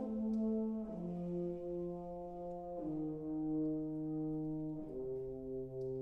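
Background music: slow, held brass chords that change about every two seconds, the lowest note stepping down with each change.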